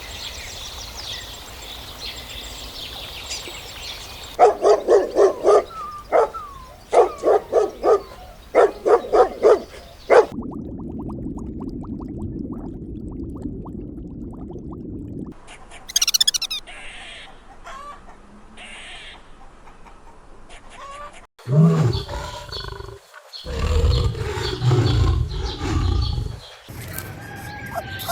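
A run of different animal calls one after another: high bird chirping first, then bursts of quick repeated calls, then deep, loud calls near the end.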